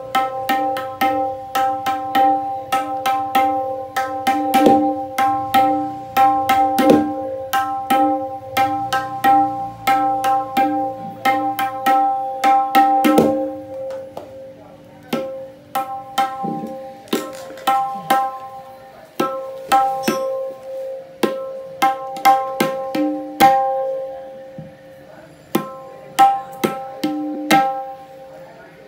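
Dayan (right-hand tabla) tuned to C, struck over and over in an uneven rhythm, each stroke ringing with a clear, steady pitch.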